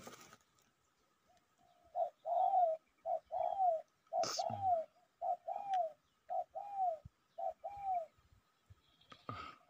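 Spotted dove cooing: six repeated phrases, each a short note followed by a longer coo that falls away. A short sharp noise cuts in about halfway through, and another near the end.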